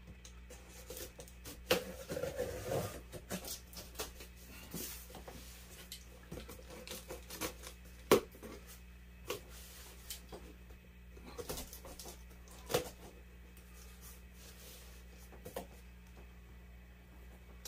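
A knife slitting packing tape along a cardboard box: scattered scrapes and rustles of blade, tape and cardboard, with sharp clicks, the loudest about eight seconds in.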